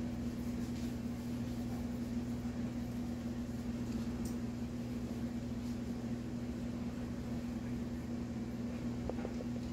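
Steady low machine hum with one unchanging tone, as from a running fan or appliance motor, with a few faint light ticks.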